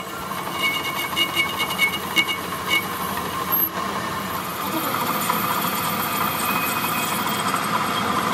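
Metal lathe running, its tool cutting a spinning steel workpiece and peeling off long curled chips: a steady machining noise, with a run of light ticks in the first three seconds.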